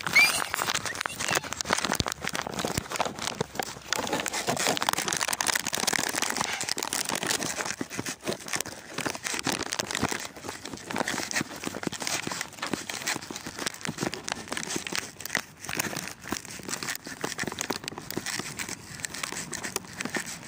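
Continuous crackling and rustling from a handheld phone carried on a walk: handling noise on the microphone, mixed with steps.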